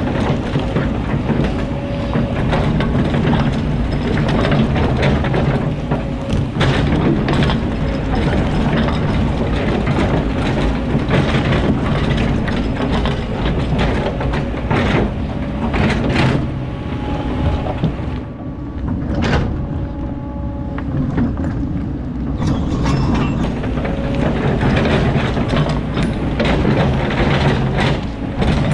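Kobelco hydraulic excavator's diesel engine running steadily under load as the steel bucket digs sand and rock, with many sharp scrapes and knocks of stones against the bucket.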